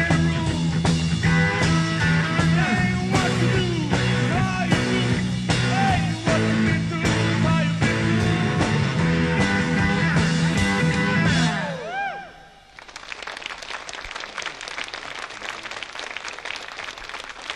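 Live rock band with electric guitars and drums playing, closing about twelve seconds in on a bent, ringing guitar note. The music gives way to audience applause.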